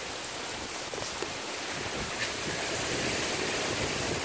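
Hurricane wind rushing through trees: a steady rush that slowly builds.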